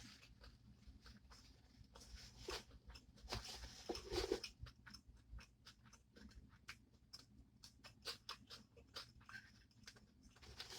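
Faint chewing with scattered wet mouth clicks in near silence, busiest between about two and a half and four and a half seconds in.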